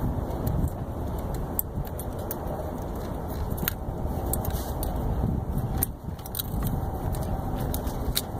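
Scattered small metallic clicks and clinks of hands and a long pick tool working among parts in an engine bay, over a steady low rumble.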